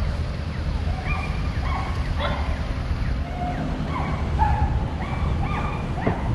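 A dog yipping and whining over and over, short high calls about one or two a second, over the steady low rumble of street traffic.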